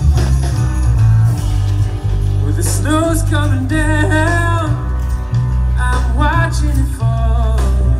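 Live band performance: a singer with guitar over strong, steady bass.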